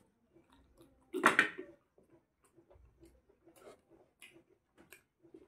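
Close mouth noises of eating chicken off the bone by hand: one loud sucking sound about a second in, then soft wet smacking and chewing clicks, several a second.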